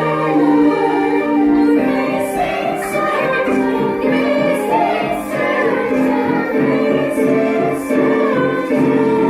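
A group of young voices singing a musical-theatre number together over instrumental accompaniment, with held notes moving in steps.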